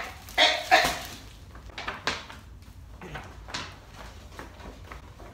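A small dog yipping and whimpering in excited play: three sharp yips in the first second, then a few fainter ones.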